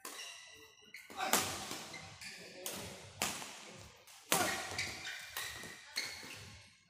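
Badminton rally: a string of sharp racket-on-shuttlecock hits, roughly one a second, each ringing on in the hall.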